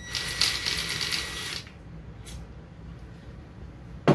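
Ryobi cordless drill, driving a universal-joint socket, spinning out a 10 mm bolt on the engine's cylinder head: a whirring motor with a steady whine for about a second and a half, then it stops. A sharp knock near the end.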